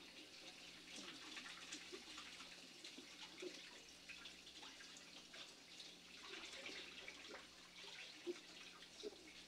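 Near silence: faint room tone with an irregular crackling hiss and soft scattered ticks over a low steady hum.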